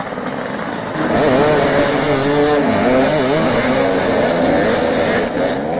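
Several motoball motorcycles' engines revving, pitch rising and falling over and over, getting louder about a second in.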